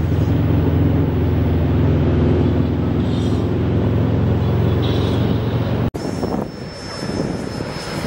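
Aircraft engine droning steadily overhead. It cuts off abruptly about six seconds in, giving way to a rushing noise with a thin, steady high whine.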